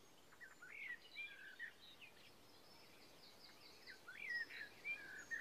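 Songbird singing faintly: two short phrases of quick chirps and warbled notes, the first about half a second in and the second about four seconds in.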